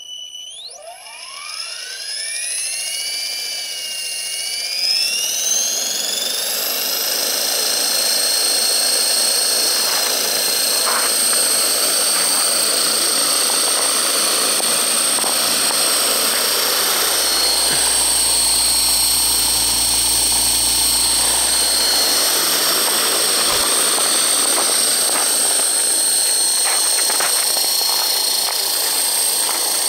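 Align T-Rex 450 Sport electric RC helicopter spooling up its rotor head, fitted with homemade LED night blades: the brushless motor and drivetrain whine rises in pitch over the first several seconds, then holds steady as the rotor spins at head speed on the ground.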